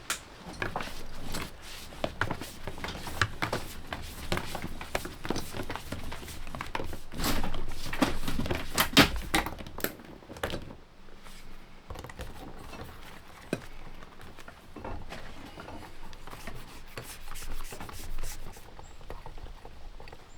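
Irregular knocks, clunks and rustling from hand work in an enclosed space, busy for the first half and sparser after about eleven seconds.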